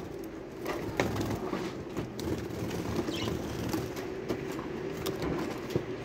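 Budgerigars feeding from a tray of mixed seed: scattered sharp clicks of beaks pecking and cracking seed, with soft chirps and chatter. A steady low hum runs underneath.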